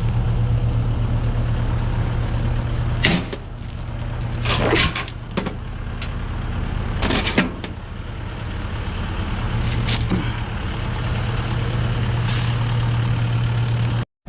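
A heavy diesel engine running steadily, with several short sharp hisses or clanks over it. The loudest comes about three seconds in and the others at intervals of a few seconds.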